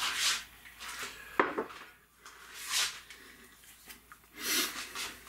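Short hissing scrapes and a sharp knock about one and a half seconds in, from a hot cast-iron roaster with a wooden spatula in it, while a thin layer of oil is baked onto it for seasoning.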